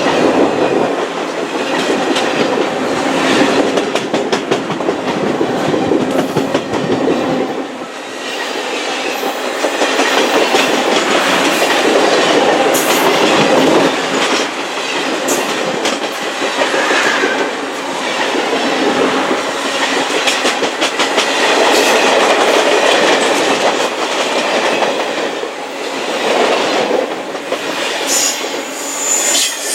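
Railroad cars rolling past at speed, wheels clicking steadily over the rail joints, with a brief high squeal near the end.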